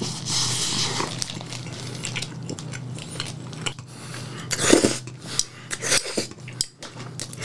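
Close-up eating sounds: chewing a fried mozzarella croquette and slurping up stretched strands of melted cheese, with scattered small clicks and taps, the loudest about 4.7 s in. A steady low hum runs underneath.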